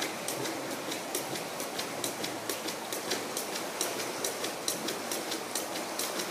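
Skipping rope slapping a tiled floor with each jump, a steady rhythm of sharp ticks about three a second, over a steady background hiss.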